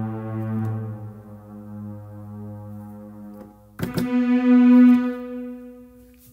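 Electronic keyboard playing a held synthesizer chord that slowly fades, then a new chord struck about four seconds in, louder, held and dying away.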